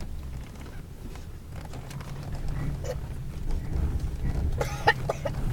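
Engine of a seven-seat four-wheel-drive Toyota SUV running under load on desert sand, heard from inside the cabin as a steady low drone that grows louder in the second half.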